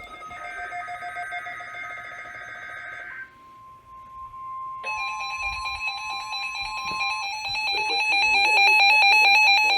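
NOAA Weather Radio test alert tones: a few seconds of shrill SAME data-burst tones, then the steady single-pitch 1050 Hz warning alarm tone from about three seconds in. About five seconds in, a louder electronic alarm with rapidly alternating tones starts over it and continues after the steady tone stops.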